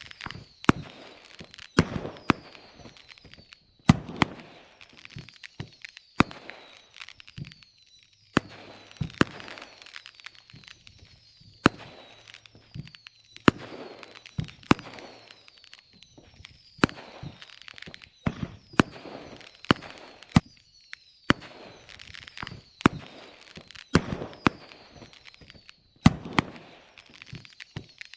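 Fireworks going off: sharp bangs and cracks every second or two, with whistles falling in pitch and crackling between them.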